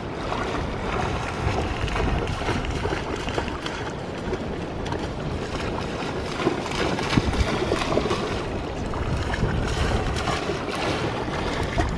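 A dog swimming and then splashing and bounding through shallow creek water, with wind rumbling on the microphone.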